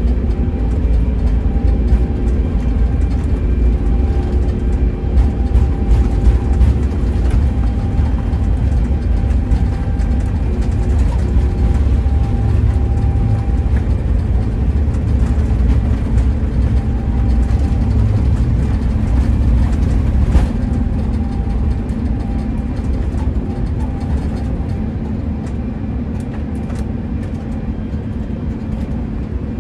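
Cabin noise of an Airbus A350-900 on its takeoff roll: Rolls-Royce Trent XWB engines at takeoff thrust with a heavy wheel rumble from the runway, and steady engine tones over it. About twenty seconds in there is a single knock, and the rumble eases as the aircraft lifts off.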